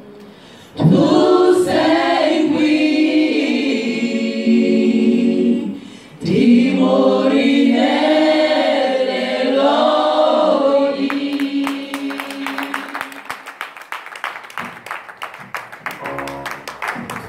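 Women's choir singing unaccompanied in harmony, in two long phrases with a short break between them. About two-thirds of the way in, the singing fades under a fast run of sharp percussive taps.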